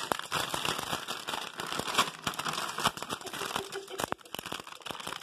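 Plastic Pup-Peroni treat bag crinkling and rustling in irregular crackles as a Yorkshire terrier pushes its nose inside and a hand holds the bag open.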